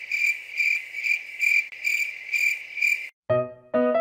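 Cricket chirping in an even rhythm, about two chirps a second, cutting off abruptly about three seconds in; piano music begins just after.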